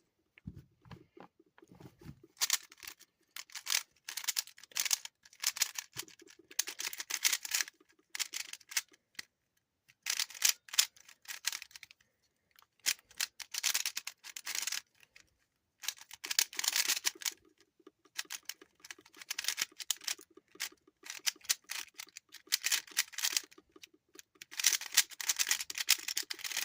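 A stiff, non-speed 3x3 puzzle cube being turned fast during a solve: bursts of rapid plastic clicking and scraping, broken by short pauses. The cube is hard to turn.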